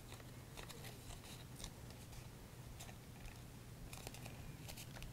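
Faint crackling and rustling of cardstock being handled and pressed, with scattered small crisp clicks as glued paper tabs are pushed into place.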